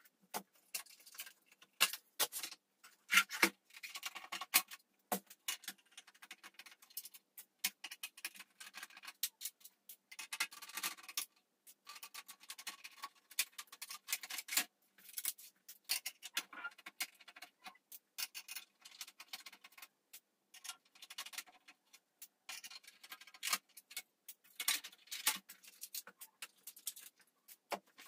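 Screwdriver turning out the screws at the back of a PC tower case, with many irregular small clicks, ticks and scrapes of metal, and knocks and rubbing as the case is handled.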